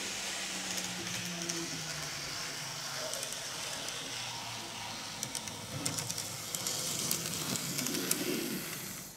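Kato N gauge Type 8620 steam locomotive model running on track: the steady hum of its small electric motor, joined from about five seconds in by quick clicking of the wheels over rail joints and the turnout as it comes close. It is being run in to work the oil through its gears.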